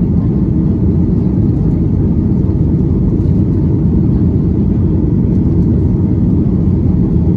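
Steady low rumble inside the cabin of a Boeing 737 MAX 9 in flight, from its CFM LEAP-1B engines and the air rushing past the fuselage.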